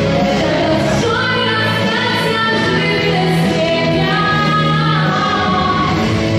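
Young woman singing a Russian song into a microphone over instrumental accompaniment, holding long sung notes.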